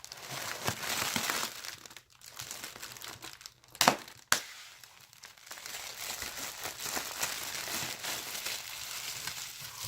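Shipping packaging being handled and crinkled as a box is unpacked, with two sharp snaps close together about four seconds in.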